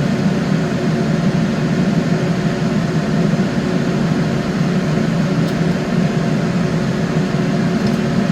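Steady droning hum of a running motor or fan, with a constant tone over an even noise that doesn't change.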